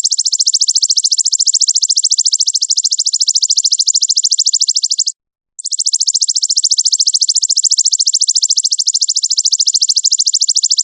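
A high, rapid trill of very even chirps in two long bouts, broken by a short gap about five seconds in. It is a recorded call played as a masteran, a tutor sound for training songbirds.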